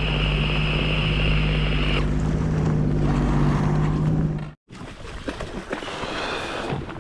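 Sea-Doo FishPro Sport 170 personal watercraft engine running steadily at trolling speed, a low even hum with a higher whine over it for the first couple of seconds. About four and a half seconds in, the hum cuts off suddenly, leaving quieter wind and water noise.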